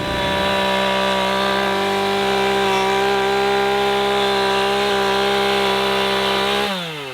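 A power tool's motor running at a steady speed, then winding down near the end as it is switched off.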